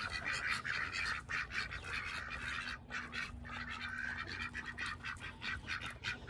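Domestic ducks bathing in a plastic wading pool: continuous choppy quacking and chatter mixed with splashing water.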